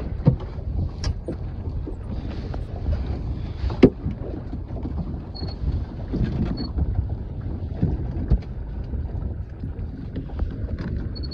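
Wind buffeting the microphone on an open boat, a steady low rumble, with scattered sharp knocks and clicks from gear being handled on the boat; the loudest knock comes about four seconds in.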